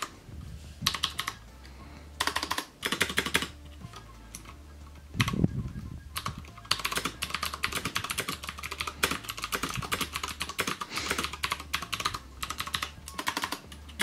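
Typing on a Cooler Master MasterKeys S PBT keyboard with Cherry MX Green switches and thick PBT keycaps: a clatter of clicky keystrokes, each with a sharp click. The typing comes in a few short bursts with pauses, then runs almost without a break from about halfway to near the end.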